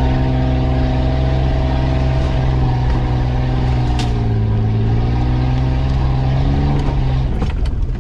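Off-road 4x4's engine pulling steadily at low speed on a rough grassy track, heard from inside the cab. The note sags in the middle, then falls away briefly near the end amid a few sharp clicks.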